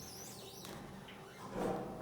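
A bird chirping in quick, high, warbling notes through the first half, then a brief louder, lower sound near the end.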